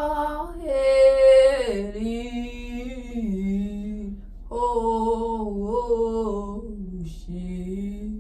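A woman singing alone with no accompaniment and no clear words, holding long notes of about a second each that slide up and down in pitch.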